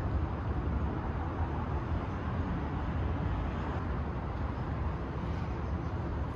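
Steady open-air background rumble with a soft hiss, even throughout, with no distinct knocks or footfalls standing out.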